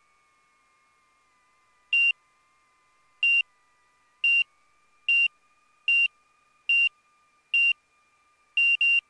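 Aviat Husky's angle-of-attack (AOA) warning beeping: short high beeps starting about two seconds in, roughly one a second, then quickening to three in quick succession near the end. The alarm is "still barking" at very slow speed, warning of a high angle of attack because the wing is still flying during the landing rollout.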